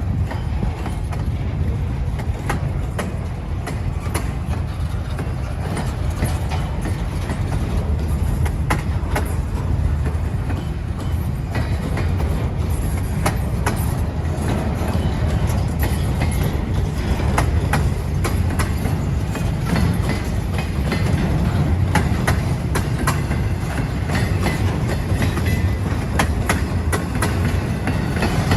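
Norfolk Southern freight train's cars rolling past, a steady low rumble with the wheels clicking over rail joints.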